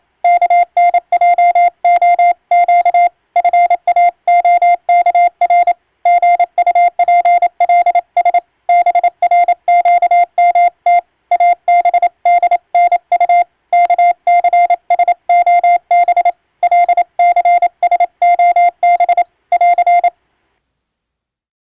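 Morse code sidetone from an electronic keyer: a single steady beep switched on and off in quick dits and dahs, sending an English-language practice radiotelegram. The keying stops about 20 seconds in.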